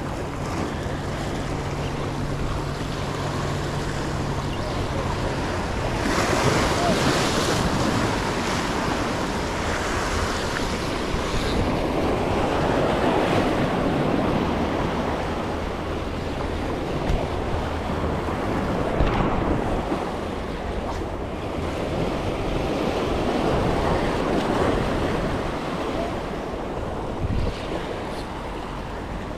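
Sea waves washing in at a jetty, with wind buffeting the microphone. The wash swells and eases every few seconds. A faint low hum sits under it for the first few seconds.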